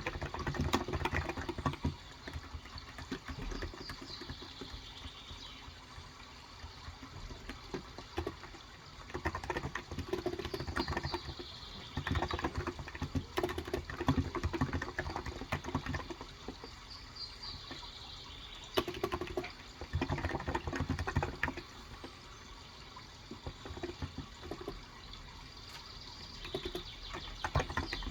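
Bursts of typing on a Cox Endeavour electro-capacitive (contactless) 35g tenkeyless keyboard, with pauses of several seconds between them. Under the typing are steady running water and short bird calls falling in pitch every few seconds.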